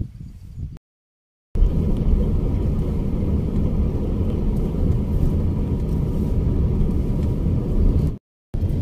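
Car cabin noise while driving: a steady low rumble of engine and tyres that starts about a second and a half in, after a brief cut to silence.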